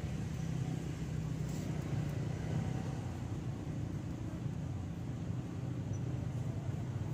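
Steady low rumble of a motor vehicle engine idling, unchanging throughout.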